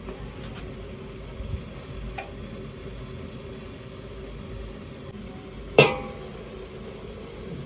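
A steady low hum with a few faint clicks, then, near the end, a single sharp metallic clank with a short ring as a stainless steel pot lid is lifted off the pot's rim.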